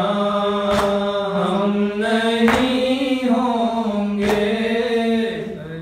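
A man's voice chanting a noha, the Shia lament for Karbala, in long held melodic lines. A sharp slap lands about every two seconds, the beat of hand on chest (matam) that keeps time with the lament.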